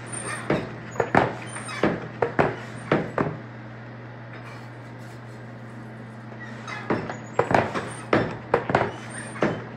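Irregular sharp metal knocks and clinks of iron tools being handled at a coal forge while the iron heats, in two spells with a quieter stretch between, over a steady low hum.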